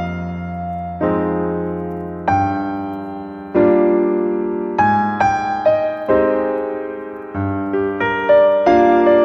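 Background piano music: slow chords with a simple melody on top, a new chord struck about every second and left to ring.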